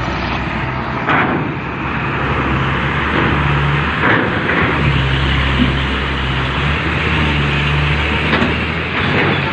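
Truck engines running as trucks drive off a ferry: a steady low engine drone over a noisy rush, with about four sharp clunks spread through it.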